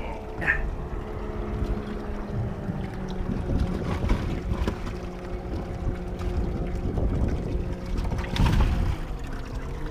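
Wind rumbling on the microphone over a steady low motor hum on a bass boat, with a few short knocks as the livewell is handled; the loudest knock comes near the end.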